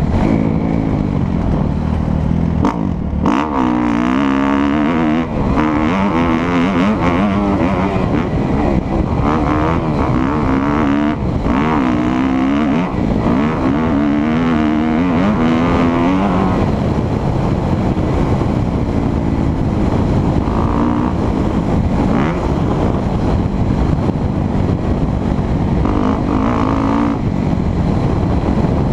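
A 2017 Kawasaki KX250F's single-cylinder four-stroke engine, heard from on the bike, revving up and down again and again as the throttle is worked and the motocross bike is ridden over dirt.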